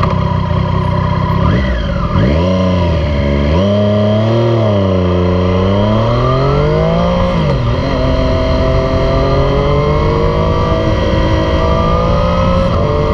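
Loud 2018 Triumph Street Triple 765 RS, its 765 cc inline-three running through a Yoshimura Alpha T exhaust. It idles steadily, then pulls away from the lights about two seconds in, revs rising and falling, with a sharp drop at a gear change about seven seconds in. It ends in a long, steady climb in revs as the bike gathers speed.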